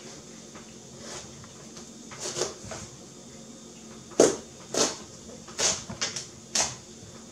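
Large kitchen knife cutting into a whole watermelon: a run of short, sharp crunches and knocks as the blade breaks through the rind, starting about two seconds in, the loudest about four seconds in.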